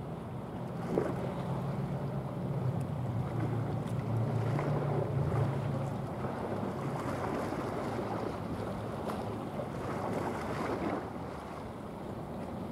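Low, steady drone of a passing container ship's engine, strong at first and fading about halfway through, over wind buffeting the microphone and the wash of water. A short knock about a second in.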